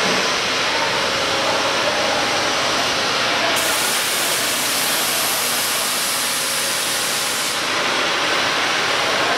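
Steady, loud hissing rush of machinery running in a CNC router workshop, with no clear beat or tone.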